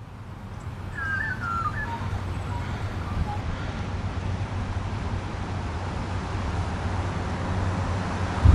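Outdoor ambience fading in: a steady low rumble of distant traffic that slowly grows louder, with a few short bird chirps about a second in.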